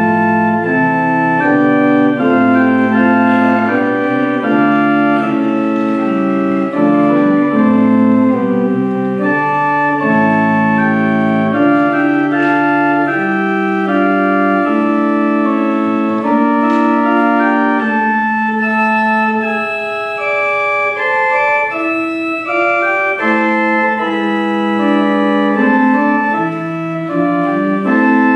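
Church pipe organ playing a slow early-Baroque contrapuntal prelude, several held voices moving against each other. The low bass line drops out for several seconds past the middle and comes back near the end.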